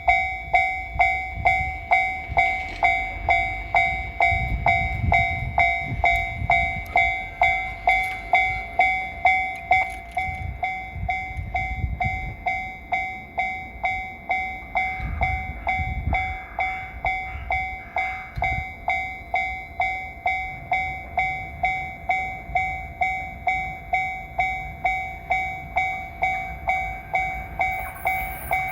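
Japanese railway level-crossing warning bell ringing steadily at about one and a half strikes a second, signalling an approaching train. Low rumbling comes and goes underneath it.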